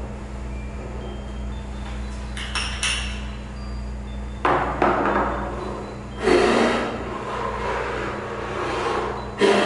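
A few sudden knocks or thumps over a steady low electrical hum.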